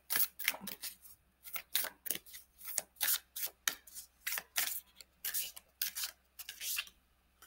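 Tarot deck being shuffled by hand: a run of quick papery swishes of cards sliding over each other, about four a second, which stops shortly before the end.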